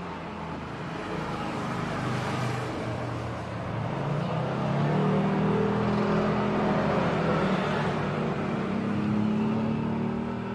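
A motor vehicle engine going by, with a steady rush of noise under it. It grows louder about halfway through and eases off near the end.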